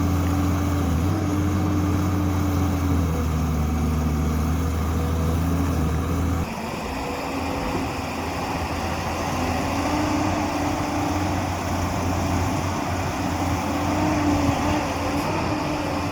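Tata Hitachi 200EX excavator's diesel engine running steadily. About six and a half seconds in the sound changes abruptly, and after that the engine note rises and falls.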